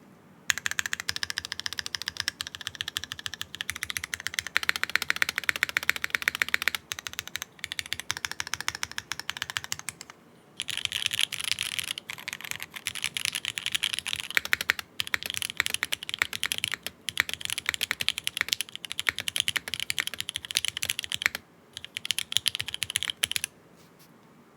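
Fast typing on a custom 60% mechanical keyboard with Cherry MX Black Hyperglide linear switches on an aluminium plate with no foam, a continuous clacky patter of keystrokes. The typing comes in runs with brief pauses and stops a second or so before the end.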